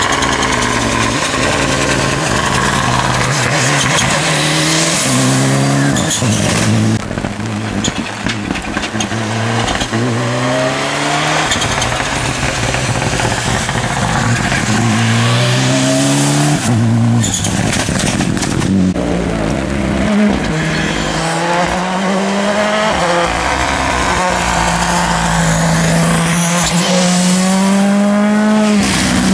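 Rally cars, among them Ford Fiestas, passing at full speed on a wet tarmac stage one after another. Their engines rev up through the gears and drop at each shift or lift, over the hiss of tyres on the wet road.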